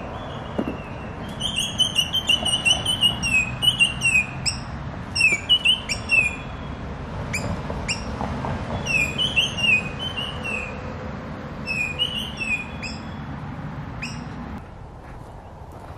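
Birds chirping in quick repeated phrases of short falling notes, over a steady low rumble that drops away near the end.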